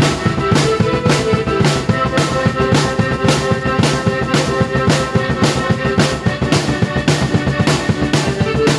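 Drum kit played in time with a keyboard: a steady beat of bass drum, snare and cymbal hits about twice a second over held keyboard chords.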